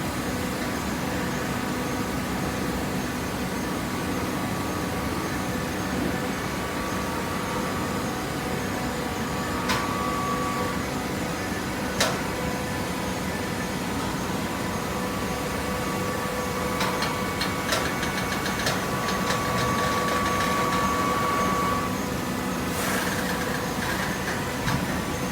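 Hydraulic baler's motor and pump running with a steady hum. There is a sharp clank about halfway through, and in the second half a higher whine grows louder for about five seconds, with a few clicks.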